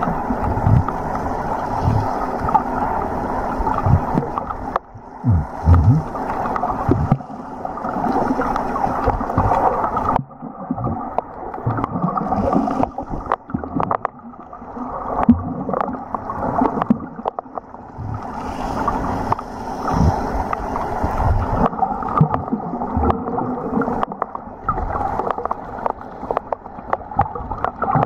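Muffled underwater sound picked up by a camera in a waterproof housing: water sloshing and gurgling against it, with scattered clicks and low knocks from the housing being moved.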